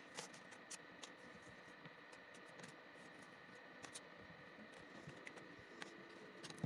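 Faint scattered taps and clicks of a cat's paws on a wooden floor as it plays with a crumpled paper, with one louder knock near the end.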